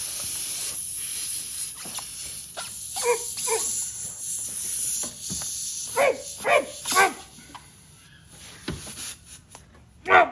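Air hissing steadily out of a punctured motorcycle tire, fading out after about five seconds as the rope plug goes in. Short pitched squeals cut through it: two about three seconds in, three louder ones around six to seven seconds, and another at the end.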